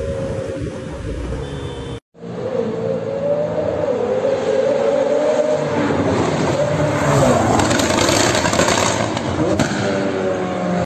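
McLaren 765LT's twin-turbo V8 running hard on the road, its pitch rising and falling as it revs, with a rush of noise that grows louder in the middle. It drops out briefly at an edit cut about two seconds in.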